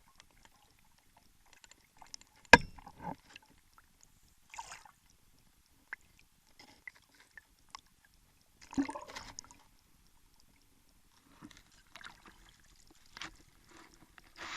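Water splashing and gurgling in short scattered bursts, with a few sharp knocks; the loudest knock comes about two and a half seconds in and another near nine seconds.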